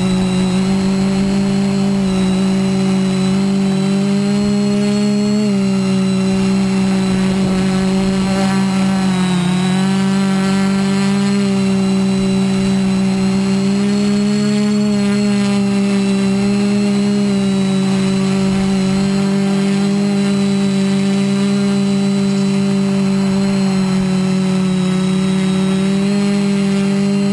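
Quadcopter motors and propellers running steadily, recorded up close by the GoPro mounted on the frame. The whine holds a steady pitch that wavers slightly up and down as the throttle changes, dipping and rising briefly about a third of the way in.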